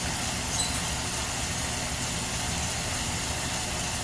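Steady running noise of a lapidary saw's motor, with a faint tap about half a second in.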